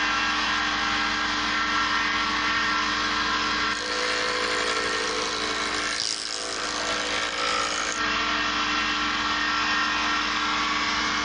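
Benchtop multifunction woodworking machine running: a steady electric-motor hum under a dense whirring noise, changing slightly a couple of times.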